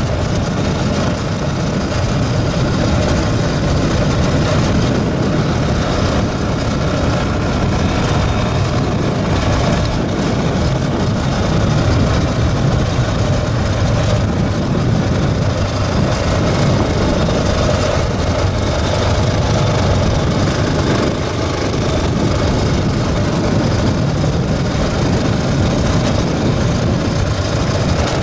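Motorcycle riding along a dirt road: steady engine and wind noise with no change in pace.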